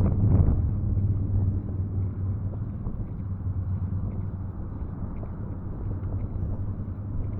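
Road traffic: a vehicle passing close and fading over the first couple of seconds, then a steady low rumble of traffic.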